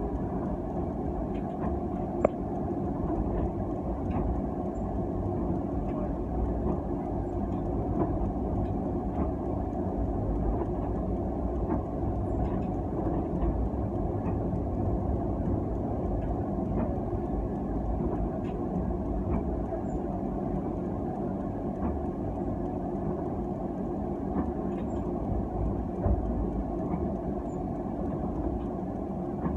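Tram running along street track, heard from inside the driver's cab: a steady low rumble of wheels on rail and running gear, with occasional light clicks and one sharp click about two seconds in.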